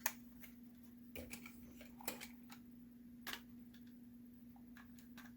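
Plastic parts of a G1 Sky Lynx transformer toy clicking and tapping as the bird half is fitted onto the top of the Lynx body: a few sharp clicks, the loudest right at the start and others about one, two and three seconds in, over a faint steady hum.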